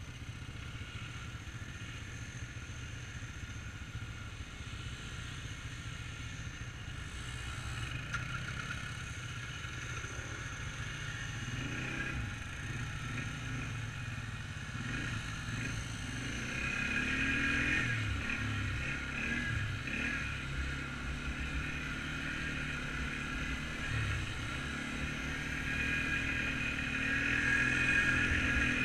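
Quad ATV engine idling steadily, then revving up and down as the quad pulls away and rides along a dirt trail, the engine growing louder from about eight seconds in.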